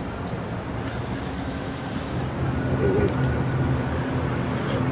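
Steady low rumble of street traffic, with a vehicle engine humming.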